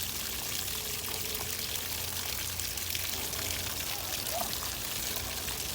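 Faint, steady hiss of running water, with a low hum beneath it.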